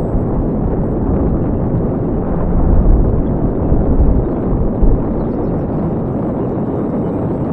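Wind buffeting the microphone: a steady low rush, with heavier gusts from about two and a half to five seconds in.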